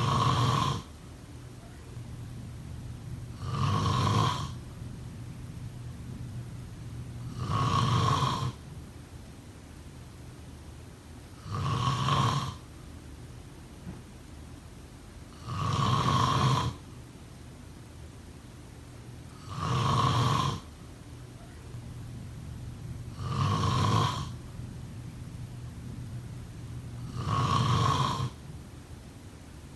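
A person snoring in a slow, even rhythm: about one loud snore every four seconds, each lasting about a second, with a fainter low breath between snores.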